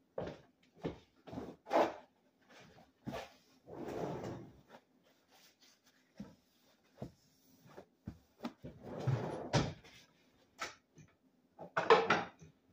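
Kitchen clean-up sounds: a string of short knocks and clunks of drawers and cupboards being opened and shut. Two longer, noisier sounds of about a second each come about four and nine seconds in.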